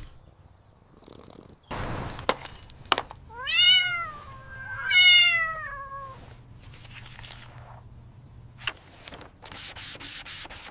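A cat meows twice, two drawn-out calls that rise and then fall in pitch, the second the longer. A burst of noise comes about two seconds in, and a run of short noisy strokes near the end.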